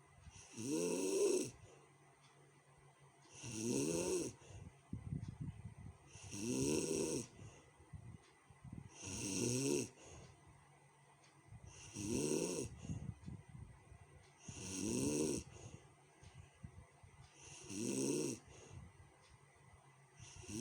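A sleeping person snoring harshly: eight rough snores, one about every three seconds, each lasting about a second and rising in pitch, with quieter rattling breaths between them.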